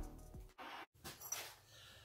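Faint background music fading out, then near silence broken by a brief dead gap at an edit cut.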